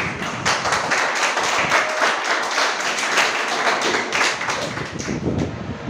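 A group of people clapping in an uneven, dense patter of hand claps, thinning out near the end.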